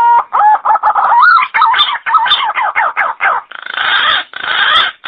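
Calls of a punay, a wild pigeon: a quick run of short warbling whistled notes that waver in pitch, turning into three longer harsh, raspy calls about three and a half seconds in.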